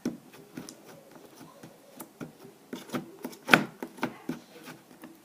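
Slime being squished and pressed into a container by hand, making irregular small clicks and pops. The loudest pop comes about three and a half seconds in.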